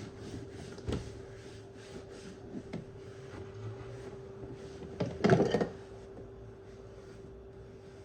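Household handling noises over a steady low hum: a sharp knock about a second in, a few light taps, then a louder clatter about five seconds in, like a drawer or cupboard being worked.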